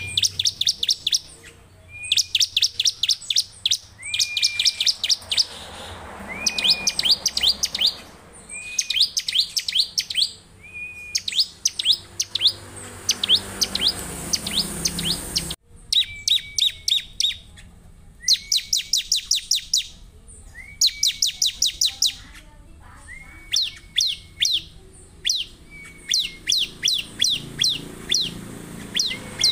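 Bar-winged prinia (ciblek) singing in repeated bursts about every two seconds: each burst is a short lower note followed by a fast run of sharp, high notes. The song breaks off abruptly about halfway and picks up again.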